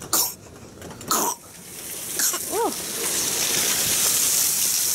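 Heavy rain pouring down, a loud steady hiss that swells up about two seconds in and then holds. A couple of knocks from handling the camera come first, and a brief squeak in the middle.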